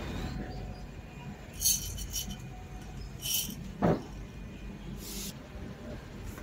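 Whole coffee beans rattling and clinking in a glass coffee server as it is lifted and handled, in several short bursts, with one sharp knock of something set down about four seconds in.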